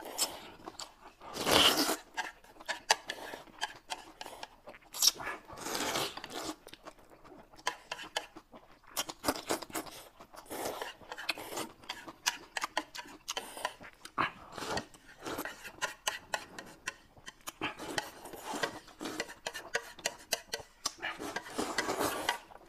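People slurping noodles in a run of irregular noisy bursts, the loudest about one and a half seconds in, with chopsticks and plates clinking. Near the end, broth slurped straight from the rim of a plate.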